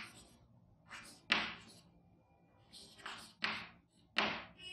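Chalk writing on a blackboard: about six short, scratchy strokes and taps with brief pauses between them.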